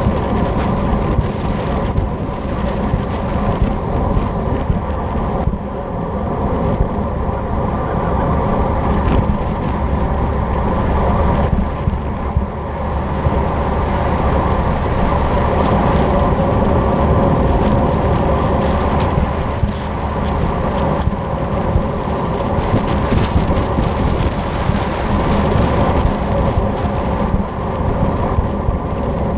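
Steady rush of wind buffeting a handlebar-mounted camera's microphone on a road bike descending at speed, mixed with the rolling noise of the tyres on asphalt.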